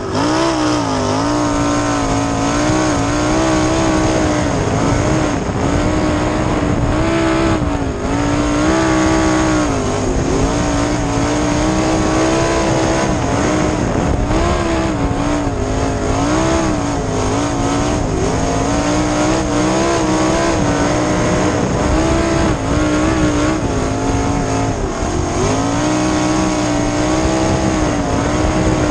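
Winged dirt sprint car's 410 V8 engine at racing speed, heard onboard, its pitch rising and falling over and over as the driver works the throttle through the turns, over the rush of wind and dirt.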